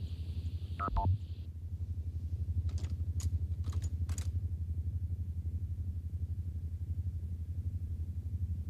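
Film sound: a steady low pulsing throb. A hiss cuts off about one and a half seconds in, and a few sharp clicks come between about three and four seconds in.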